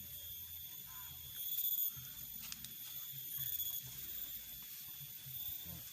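A person eating spicy noodles: a slurp about one and a half seconds in, then soft chewing, over faint steady high-pitched background tones.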